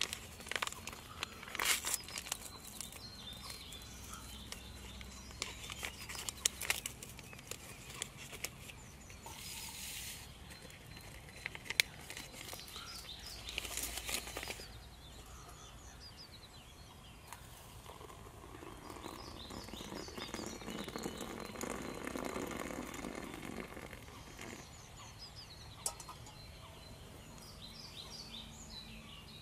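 Crinkling and rustling of a packet and a nylon stuff sack, with scattered small clicks, as gear is handled beside a lit gas canister stove. Two louder rustles come in the first half; later a softer rushing sound swells and fades.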